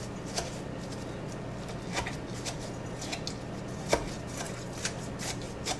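Muddler knocking and grinding lime wedges, mint leaves and sugar in the bottom of a glass: irregular short knocks, about eight, pressing the juice out of the lime.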